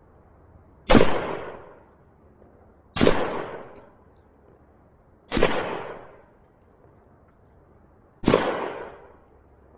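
Four single gunshots two to three seconds apart, each trailing off over about a second.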